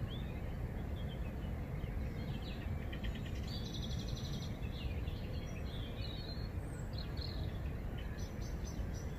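Outdoor evening soundscape: birds chirping, with several short calls and a rapid trill in the middle, over a steady low rumble.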